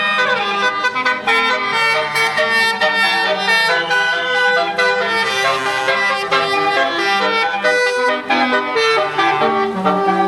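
A bus's basuri musical air horn (telolet) playing a melody: steady horn notes that keep changing pitch, several sounding together as a chord.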